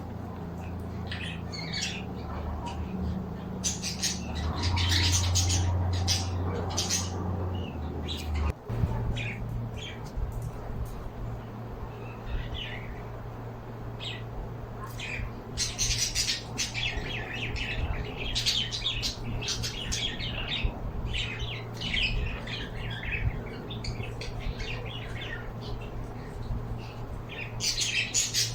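Pet birds squawking and chirping in many short, high calls that come in clusters, over a steady low hum.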